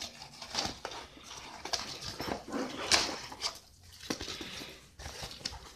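Rustling and scraping of a nylon tactical vest as it is unfolded and handled, with scattered clicks from its fittings and one sharp click about three seconds in.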